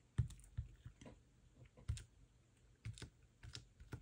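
Faint, irregular light taps and clicks of crafting tools on a work surface, about seven over a few seconds.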